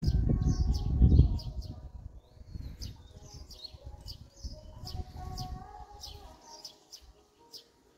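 Small birds chirping repeatedly, over a low rumble that is strongest in the first second or so and then dies away.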